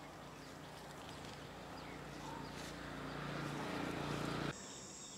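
Outdoor ambience with a low motor hum that grows gradually louder and then cuts off suddenly about four and a half seconds in, leaving a high steady insect drone.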